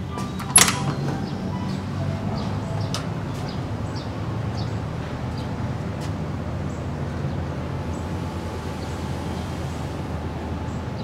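Steady low background rumble with one sharp, loud clack about half a second in, followed by a few light clicks over the next few seconds.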